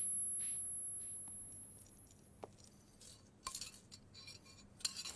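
The ringing tail of a slap sound effect fades away over the first two seconds. A spoon then taps faintly against a drinking glass a few times.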